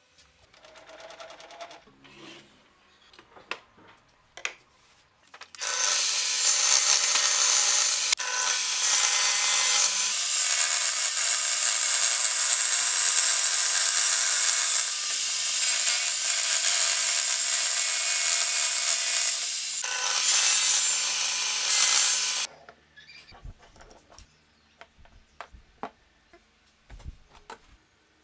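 Table saw cutting through a hardwood board: a loud, steady cutting noise lasting about seventeen seconds, with two brief dips, starting and stopping abruptly. Before and after it there are only quiet clicks and handling of wood and tools.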